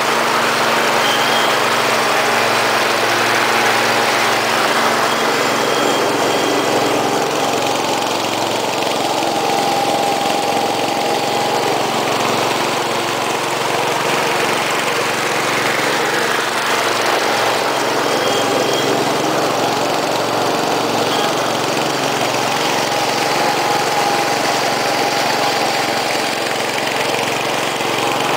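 Cub Cadet 127 garden tractor's 12 hp Kohler single-cylinder engine running steadily under load with the 48-inch mower deck engaged, passing close at first and then working farther off across the lawn, the sound swelling and easing slightly as it goes.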